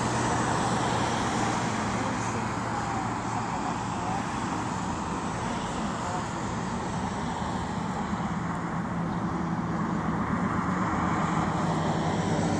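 Steady engine noise like passing road traffic: a continuous hiss and rumble over a low steady hum, easing slightly midway and swelling again toward the end.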